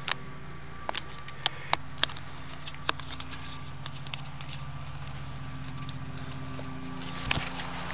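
Scattered sharp clicks and light rustling of handheld camera handling as it moves among squash leaves and corn stalks, over a steady low hum.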